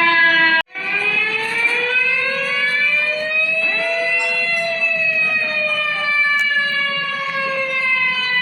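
Tsunami warning siren wailing with many overtones. It breaks off for an instant just under a second in, then rises slowly in pitch for about four seconds and falls slowly again.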